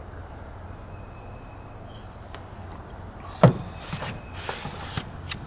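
Steady low background rumble, with one sharp knock about three and a half seconds in and a few lighter clicks after it, as things are handled on a tabletop.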